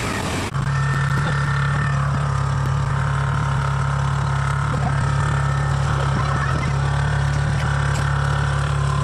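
Kubota Harvesking combine harvester's diesel engine running steadily: a constant low hum with a fainter, higher machine whine over it.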